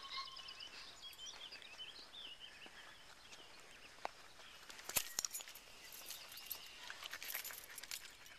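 Small birds twittering in quick short notes through the first few seconds, then scattered rustling and sharp clicks, loudest about five seconds in.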